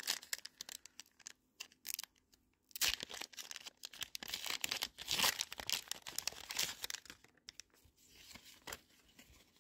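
Foil wrapper of a Pokémon trading card booster pack being torn open and crinkled: a run of crackling rips, loudest in the middle, with softer rustling near the end.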